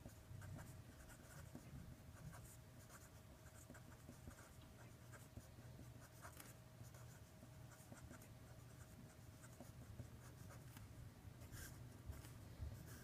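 Faint scratching of a pen writing in short, irregular strokes over a low steady hum.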